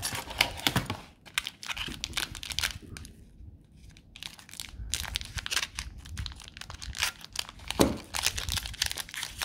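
Trading card pack wrapper crinkling and being torn open, a busy run of irregular crackles, with one louder knock about eight seconds in.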